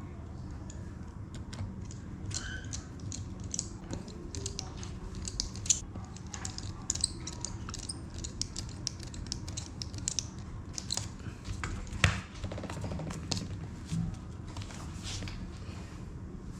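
Many small irregular clicks and taps from hands working on a laptop, with two sharper clicks about six and twelve seconds in, over a steady low hum.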